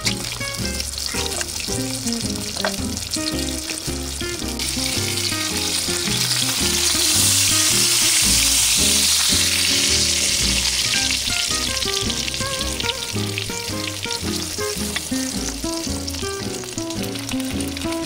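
Whole yellowback sea bream frying in oil in a pan, a steady sizzle that swells a few seconds in and eases after the middle, under background music.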